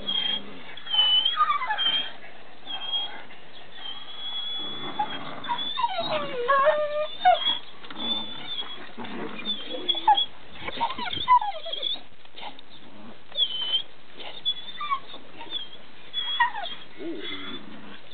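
A dog whimpering in short, high whines that slide up and down in pitch, loudest about six to seven seconds in. Birds chirp high and briefly throughout.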